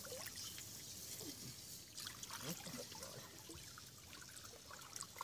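Shallow pond water sloshing and trickling as people wade and work their hands through it, with small scattered splashes.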